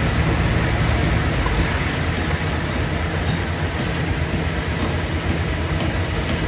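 Stone crushing plant machinery running: a steady, loud rumble with a dense rattling hiss over it.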